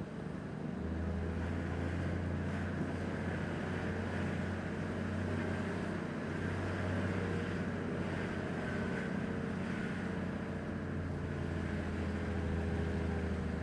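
A motor vehicle's engine running steadily with a low hum, under road and wind noise, as heard riding in a moving vehicle.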